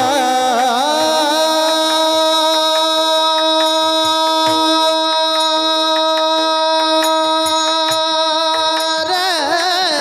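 Kirtan singing: a voice holds one long, high, steady note for about eight seconds, with quick ornamented turns in pitch at the start and again near the end, over musical accompaniment.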